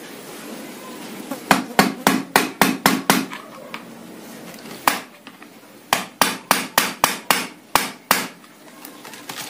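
A hammer striking in quick blows, about four a second: a run of about seven, one lone blow, then a run of about eight. It is knocking loose a glued-on part of a multi-pump air rifle.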